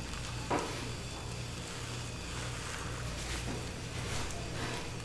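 Silicone spatula and gloved hand working a giant rolled omelette on a nonstick griddle pan: a few soft knocks and scrapes against the pan, over a steady low hum.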